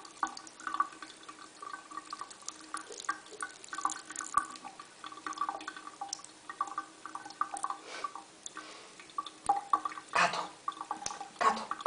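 Water dripping and trickling in a continual irregular patter of small drops, with a couple of louder splashes near the end.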